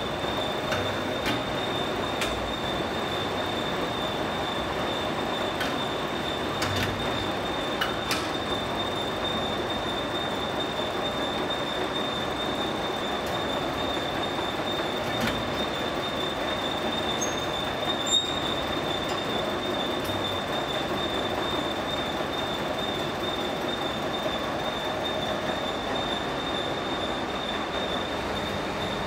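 Hydraulic power unit of a 150-ton rubber moulding press running: a steady mechanical hum with a constant high whine, and a few faint clicks.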